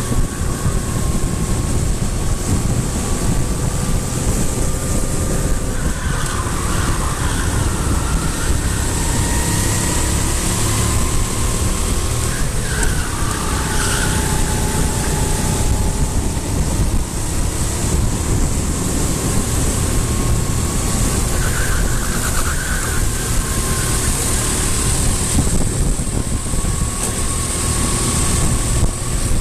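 A motor vehicle's engine running continuously, its whine drifting slowly up and down in pitch over a loud, steady rumble.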